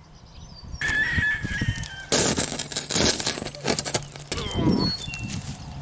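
Cast bronze sword blade being forced through a car's cracked laminated windshield. The glass gives a high squeal about a second in, then a dense run of crackling and grinding as the blade works through.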